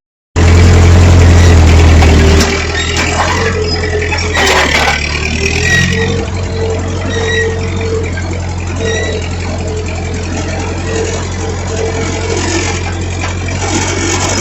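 Tractor engine running close by. It cuts in abruptly, is loudest for about the first two seconds, then settles to a steady run.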